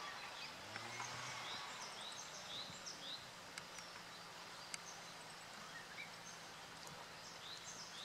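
Bird calls: a run of short, high rising chirps, about two a second for the first three seconds and then scattered, over a low steady hum.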